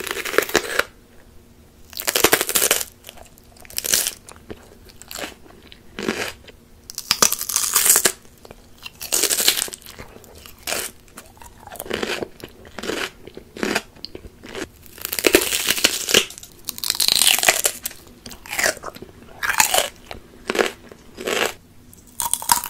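Raw bell pepper being bitten and chewed close to the microphone: crisp, wet crunches coming roughly once a second in irregular bursts.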